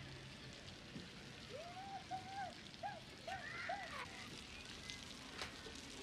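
Faint crackling and ticking of a small wood fire in an open fire pit, with a run of five short rising-and-falling calls about midway through.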